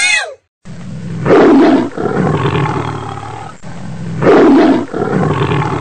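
A big cat roaring twice, the first loud roar about a second in and the second three seconds later, each trailing off more quietly.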